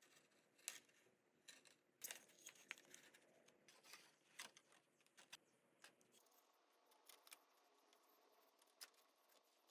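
Faint, irregular clicks and light taps, like small hard parts being handled and set down, busier in the first half.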